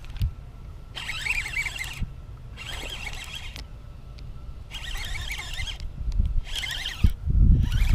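A baitcasting reel being cranked in about six short whirring bursts, each a second or less, as a topwater popper is worked back across the water. Wind rumbles on the microphone, much heavier near the end.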